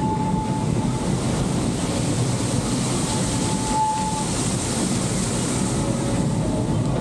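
Narrow-gauge steam train running along the track, heard from an open-sided passenger car: a steady rumble of wheels on rails, with a brief thin tone at the start and again about four seconds in.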